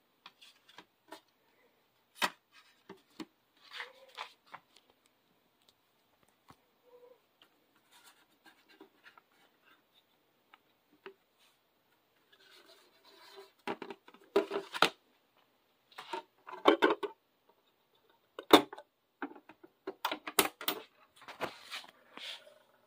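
Hands handling a CD and its cardboard sleeve, with scattered small clicks, rubbing and scraping as the disc is slid out. About halfway through comes a denser run of louder clicks and knocks as the disc is handled and loaded into the Jensen CD-725 stereo's CD player.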